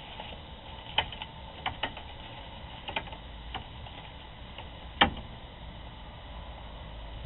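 A handful of sharp clicks and taps at irregular intervals, the loudest about five seconds in, over a steady hiss and faint hum from a security camera's microphone.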